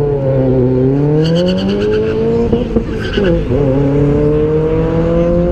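A car engine accelerating hard down a drag strip, its pitch climbing steadily, dropping briefly about three seconds in as it shifts up a gear, then climbing again.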